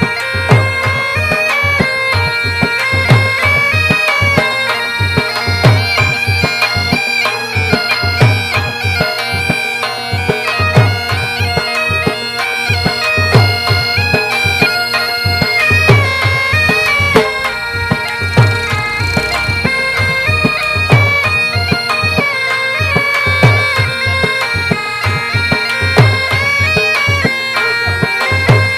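Background music: a sustained, reedy wind-instrument melody over a steady low drum beat.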